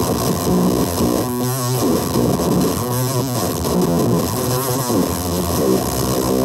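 Electric guitar played through Dirt Monger Instruments Leviathan and McLean Effects Swede Demon distortion pedals into a Headrush speaker, sounding a run of distorted chords and notes.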